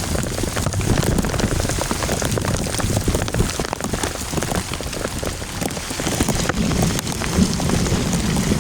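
Heavy rain in a storm, a steady dense hiss thick with the ticks of individual drops striking close by.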